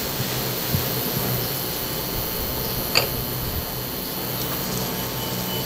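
Steady whir of a fan with a low hum underneath, and one short click about three seconds in.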